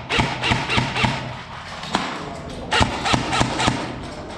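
Airsoft guns firing single shots as sharp cracks, about four a second, in two quick runs: one at the start and another near the end, with a lone shot between.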